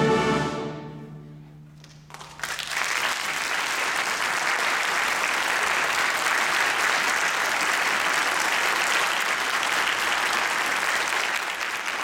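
A middle-school concert band's final held chord, with crash cymbals ringing, fades away over about two seconds. The audience then breaks into steady applause.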